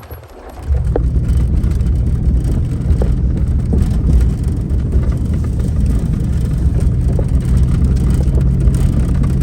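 Lifted Jeep's engine running steadily as it drives, a deep, even drone that comes in suddenly under a second in after a quieter moment.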